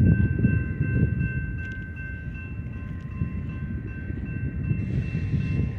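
Distant BNSF freight train's diesel locomotives approaching, heard as an uneven low rumble that is loudest at the start and eases off slightly, with a few faint steady high tones above it.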